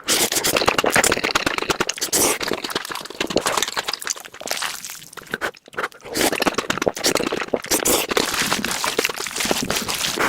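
Close-miked noodle eating sped up four times: a fast, dense run of chewing and wet mouth sounds, with a brief pause a little past halfway.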